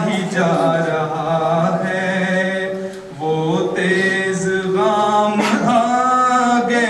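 Male voices singing an Urdu nazm (tarana) without instruments, in long held notes with a short break about three seconds in.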